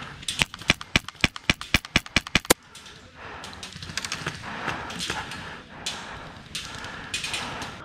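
Airsoft gun firing a quick string of about fifteen sharp shots over two seconds, then a few fainter scattered shots.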